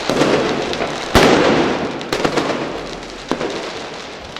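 Fireworks going off: one loud, sharp firecracker bang about a second in and two lighter bangs later, over a steady hiss.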